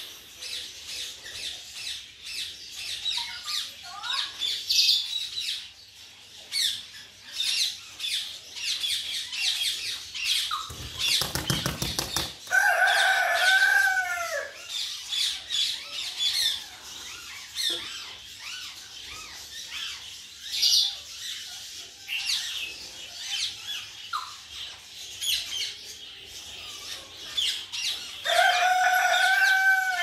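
Aviary of ringneck parakeets chirping constantly with short high calls. About eleven seconds in comes a burst of wing flapping, and right after it a parakeet gives a longer, louder call that bends in pitch. It gives the same call again near the end.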